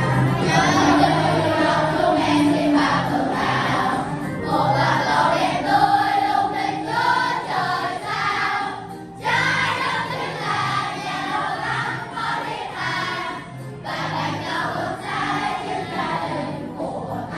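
A school class of children singing a song together as a group, phrase after phrase, with short breaks between phrases about nine and fourteen seconds in.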